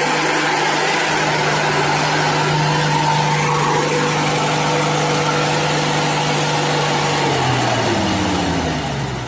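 Old 4x4 truck's engine held at high revs as it pulls through deep mud, then the revs drop away about seven and a half seconds in.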